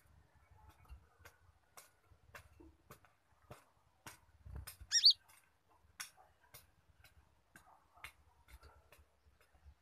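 Caged konin (kolibri ninja) bird giving sharp clicking ticks about two a second, a squirrel-like call it has learned to mimic, with one loud short chirp about halfway through.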